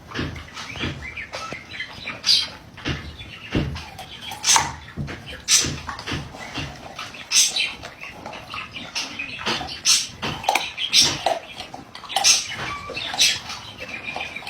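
A dog's short, high squeaks and yelps, coming irregularly about once or twice a second.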